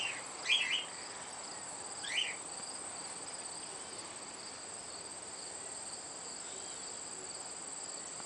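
Insects trilling steadily at a high pitch, with a few short chirps about half a second and two seconds in.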